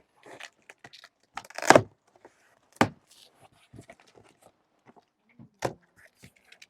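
Hands opening and handling a cardboard box and its packaging: scattered rustles and clicks with a few sharp knocks, the loudest a little under two seconds in.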